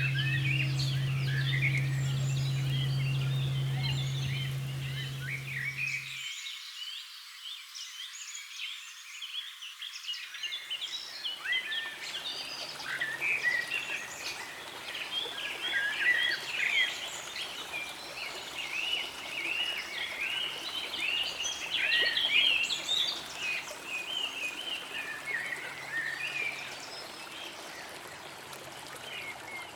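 A bell's low, steady hum that cuts off sharply about six seconds in, over a dense chorus of short, high chirping animal calls that carries on throughout.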